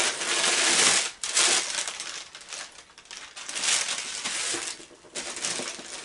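Packaging crinkling and rustling as a subscription box is opened and its contents handled, in several bursts, loudest in the first two seconds.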